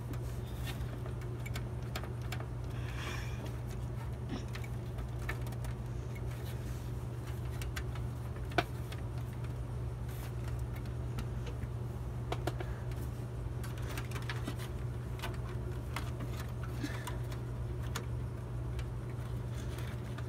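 Scattered light clicks and taps of hands working loose parts inside a metal desktop computer case, with one sharper click about eight and a half seconds in, over a steady low hum.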